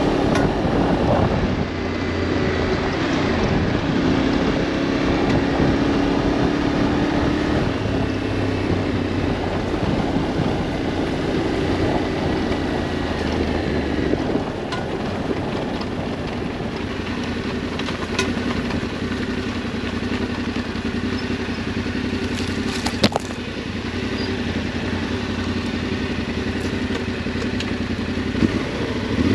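Adventure motorcycle engine running under way on a dirt track, its pitch shifting up and down with the throttle, with a single sharp click about three-quarters of the way through.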